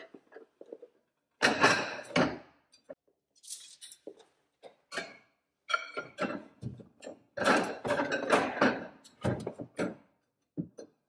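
Ceramic plates and bowls clattering and clinking as they are stacked and shifted on a cabinet shelf, with metal wire shelf risers knocked into place, in several bursts of knocks.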